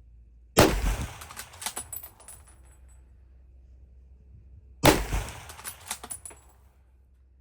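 Two rifle shots from a Smith Corona 1903A3 bolt-action rifle in .30-06, fired about four seconds apart, the first about half a second in and the second near the middle; each is followed by a few smaller clicks as the sound dies away.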